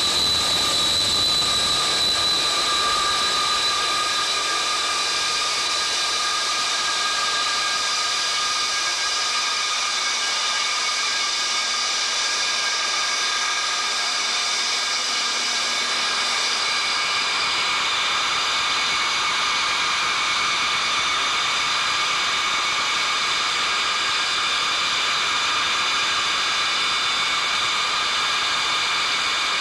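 The KC-135A's Pratt & Whitney J57 turbojet engines running steadily on a ground maintenance run. Several steady high whining tones sit over a broad jet rush, and the tones shift slightly about halfway through.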